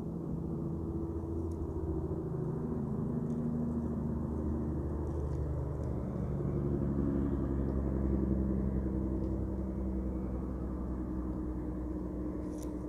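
A motor vehicle's engine running with a low rumble, growing louder toward the middle and easing off near the end.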